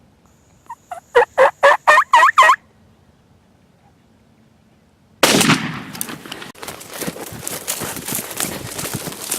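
A Rio Grande turkey gobbler gobbles, a quick rattling run of notes about a second long, and a few seconds later a single loud shotgun blast goes off, followed by steady rustling and crackling through the brush, the shot bird flopping or the hunters moving.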